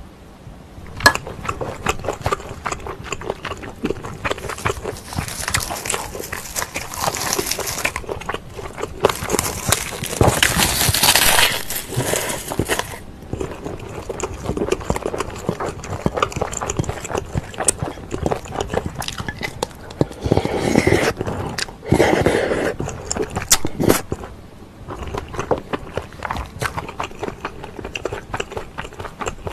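Close-miked eating sounds of pork kimchi stew eaten with a spoon: wet chewing and mouth clicks throughout, with long hissing slurps about five seconds in and again around ten seconds, and shorter ones around twenty seconds.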